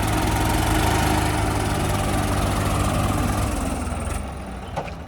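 Tractor diesel engine running steadily, then dropping away about three and a half seconds in as it throttles back.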